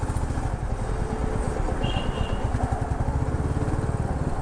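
Royal Enfield Meteor 350's single-cylinder engine running steadily under way in slow traffic, with a rapid even thump.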